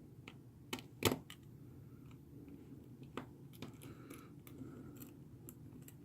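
Small tools on a phone: a screwdriver and tiny screws clicking and tapping against the plastic frame, with one sharper tap about a second in.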